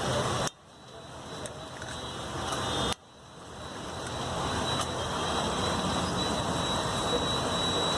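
Eggs sizzling in oil on a large flat street-stall griddle, mixed with street traffic noise. The sound cuts off suddenly about half a second in and again about three seconds in, each time building back up over a couple of seconds.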